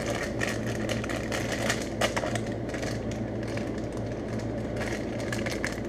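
Crinkling and clicking of a plastic candy bag being handled, over a steady low hum.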